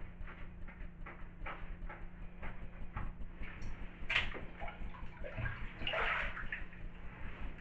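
Bathwater splashing and sloshing as a leather work boot is lowered into a full bathtub: a sharp splash about four seconds in and a longer one about six seconds in. Before that, soft clicks come about twice a second.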